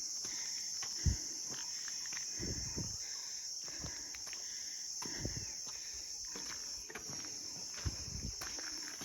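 Steady high-pitched drone of insects, with footsteps thudding on the trail a few times.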